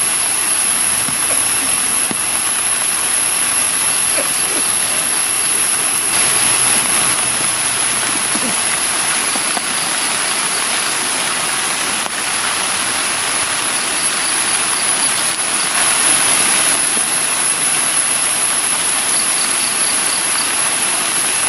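Steady rain falling on trees and a wet platform, an even hiss, with a constant high-pitched whine above it. Faint quick ticking comes in twice, briefly, in the second half.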